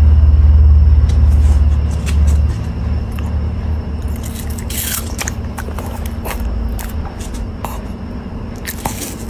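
Shih Tzu biting and chewing a wedge of watermelon held up to its mouth: a run of short wet crunches and clicks, with one louder crunch about five seconds in. A low rumble underlies it, loudest in the first two and a half seconds.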